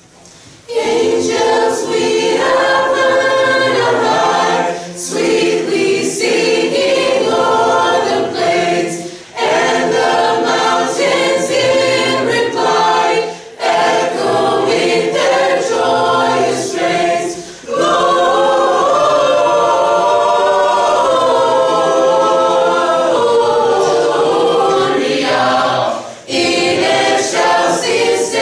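Mixed-voice high school choir singing in parts, coming in about a second in, with short breaks between phrases.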